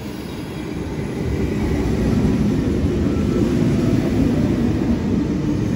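Double-deck electric intercity train (a V set) running alongside the platform: a low rumble of wheels and running gear that grows louder over the first two seconds and then holds steady as the carriages pass close by.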